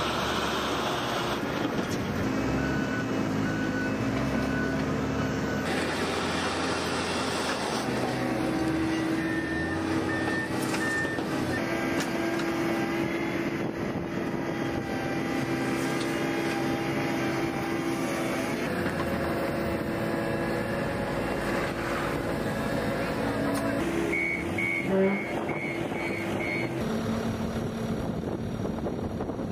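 Diesel engines of heavy construction machinery, a wheeled excavator and a compact track loader, running steadily. Backup alarms beep in short runs several times, with a quicker run of about six beeps near the end.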